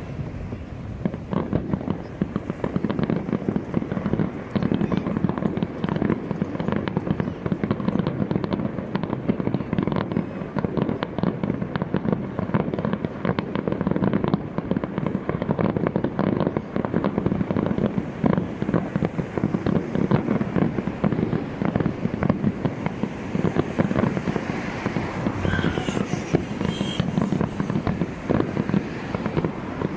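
Fireworks display in a dense, continuous barrage: many bangs and crackles in rapid succession with no pause.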